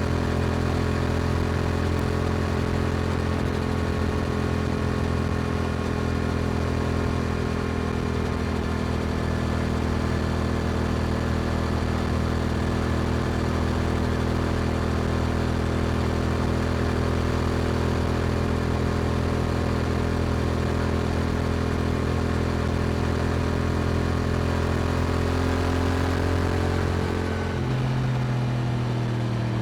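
Yamaha R7's parallel-twin engine through an Akrapovic exhaust, running at a steady cruise. Near the end the engine note drops and changes, as on an upshift or closing the throttle.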